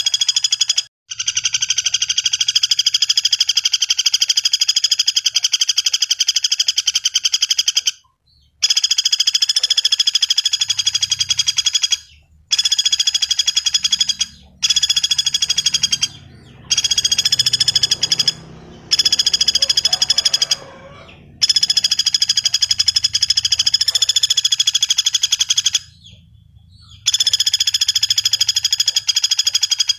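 Common flameback woodpecker calling: long, very fast rattling trills lasting several seconds each, separated by short breaks.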